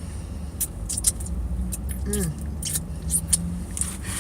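Mouth sounds of eating fries (chewing, lip-smacking) with scattered sharp clicks and crackles of food packaging, over a steady low rumble of the car. A short hummed 'mm' comes about two seconds in.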